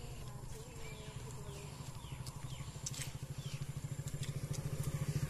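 Motorcycle engine running as it approaches, its low pulsing growing steadily louder.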